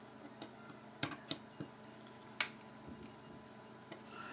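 A few light metallic clicks and taps from a folding knife's metal parts being handled during disassembly: two close together a little after a second in, and one more about halfway through.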